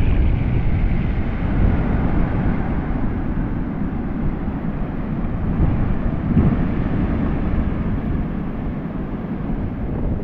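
Steady wind rumbling on the microphone over the rush of the sea at the reef, mostly deep.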